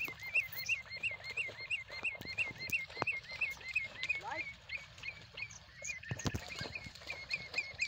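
An animal calling in a rapid, steady series of short high chirps, about four a second. A brief rising squeak comes about four seconds in and a dull knock a little after six seconds.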